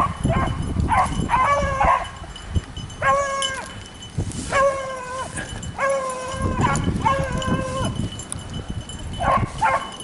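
A pack of beagles baying while running a rabbit's track: a string of drawn-out howling calls, one after another, a few voices overlapping.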